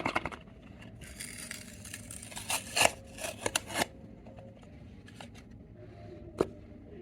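Makeup products being handled: a scraping hiss, then a quick run of sharp clicks and snaps, and one more click near the end.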